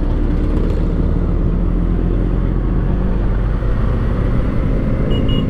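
Kawasaki Eliminator 450's parallel-twin engine running steadily while the bike is ridden, mixed with road and wind noise. Two short high beeps come near the end.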